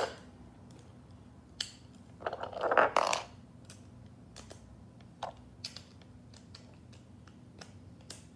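Small plastic clicks and a short rustling scrape from Beyblade spinning-top parts being handled and fitted together. The scrape, about two seconds in, is the loudest sound; single clicks follow a few seconds apart.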